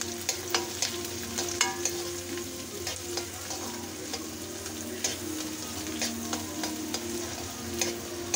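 Sliced onions, carrots and capsicum sizzling in oil in a hot wok (kadhai) as a metal ladle stirs them, with irregular sharp clicks and scrapes of the ladle against the pan over the steady hiss.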